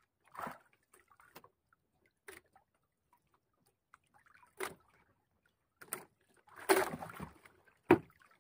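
Sparse, faint water sounds aboard a small wooden outrigger boat, with drips, a short slosh and light knocks on the hull. There is a sharp, louder knock near the end.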